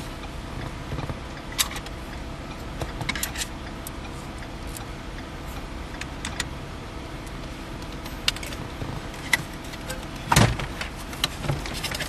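Scattered light clicks and rattles of hand tools and screws against dashboard trim as the radio's mounting screws are taken out, with one louder knock about ten seconds in.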